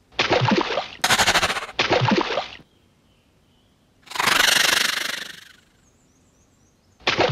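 Crocodile sound effects: short rough growls, three times, with a fast rattling burst after the first, and a longer hissing rush about four seconds in.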